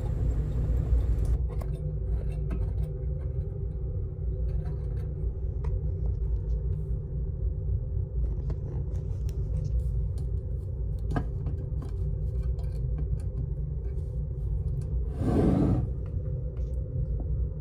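Steady low rumble of room and handling noise, with scattered light clicks and taps as the aircraft valve and its lock are handled by hand, and a short scrape about fifteen seconds in.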